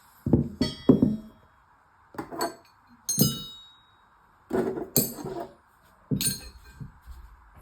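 Steel hand tools, wrenches among them, clinking against each other as they are handled and set down. There are about eight separate clinks, some ringing briefly.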